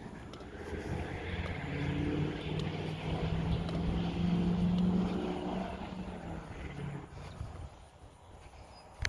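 An engine drones past, growing louder over about five seconds and then fading away.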